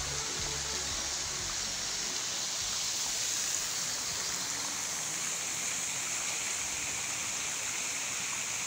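Steady rushing of falling water, an even hiss with no breaks.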